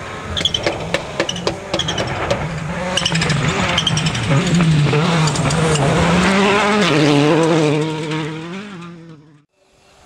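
Skoda Fabia WRC rally car's turbocharged four-cylinder engine at full throttle as it approaches and passes on gravel, its note wavering with throttle and gear changes, with a run of sharp cracks in the first couple of seconds. The sound builds to its loudest as the car goes by, then fades and cuts off abruptly near the end.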